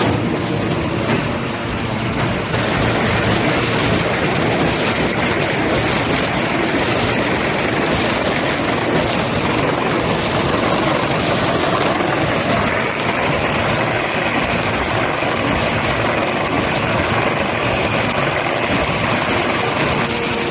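Automatic two-colour corrugated carton printing, slotting and die-cutting machine running in production, a loud steady mechanical noise of its rollers and feed.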